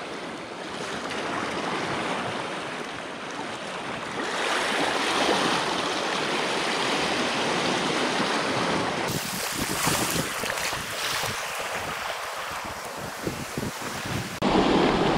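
Sea swells surging and washing over a rock shelf at the water's edge, a steady rush that swells about four seconds in, with a brighter, hissier wash of foam over the rocks around ten seconds. Near the end it changes abruptly to louder wind buffeting on the microphone.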